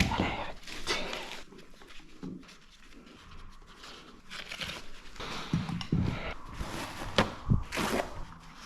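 Workshop handling noises from hands and tools working on a motorcycle tyre: a sharp click at the start, rustling and scraping, then a few knocks near the end.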